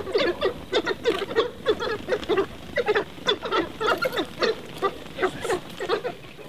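A pack of African wild dogs calling in a dense run of short, high, chattering calls, several a second: the excited calls of a pack abandoning its kill to an approaching lion. The calls thin out near the end.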